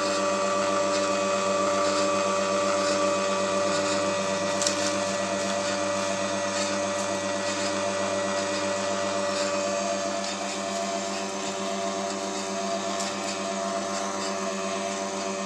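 YMC electric screw oil press running steadily under load as it presses sesame seeds: an even motor-and-gear hum with several steady tones, one light click about five seconds in.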